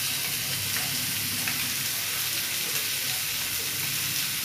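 Paneer cubes and capsicum steadily sizzling in a frying pan on a gas burner.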